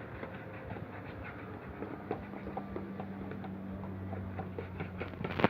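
Glue, water and food colouring being stirred together for slime: a run of small, irregular clicks and taps.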